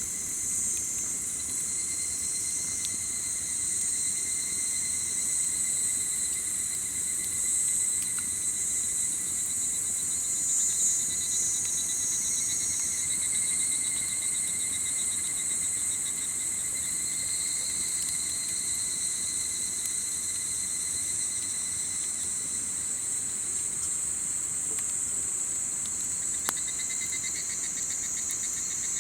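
Dense chorus of summer insects singing steadily in several high, pulsing tones, with a few faint crackles from a wood campfire.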